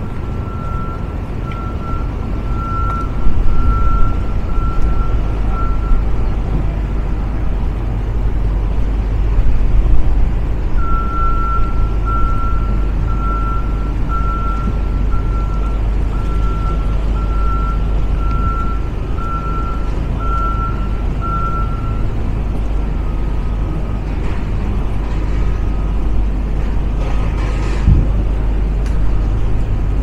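An electronic warning beeper sounds at one steady pitch, about one and a half beeps a second, stopping about six seconds in and starting again near eleven seconds for another eleven seconds. A steady low rumble runs underneath, with a single short knock near the end.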